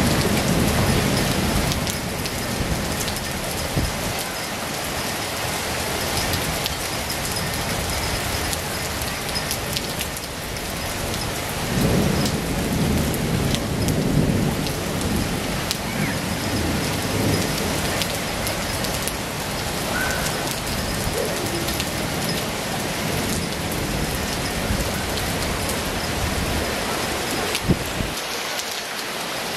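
Heavy rain pouring down steadily on the surroundings, with low rumbles swelling up near the start and again about twelve to fifteen seconds in.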